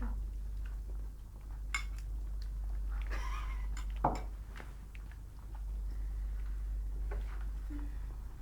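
Spoon and dish sounds while eating ice cream: a few scattered light clicks and knocks, the sharpest about four seconds in and another at the end, over a steady low hum.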